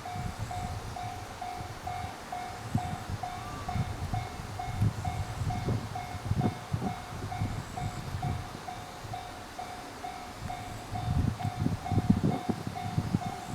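Japanese railway level-crossing warning bell ringing in an even electronic ding-ding, about two strokes a second. Under it a train runs past, its wheels knocking over the rail joints, the knocks growing busier near the end.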